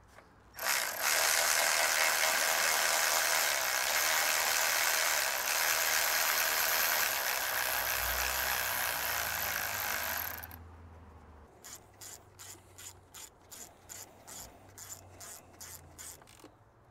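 Ratchet wrench driving a bolt while the power steering pump is refitted. First comes a fast, continuous ratcheting rattle for about ten seconds. Then it slows to separate ratchet clicks, about three a second.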